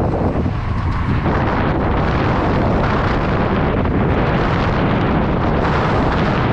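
Heavy wind rushing over the microphone of an electric scooter riding at speed: a loud, steady roar with no clear pitch or rhythm.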